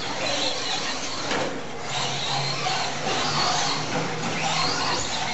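Several radio-controlled 2WD Slash short-course trucks racing on dirt, their motors whining and changing pitch as they speed up and slow down.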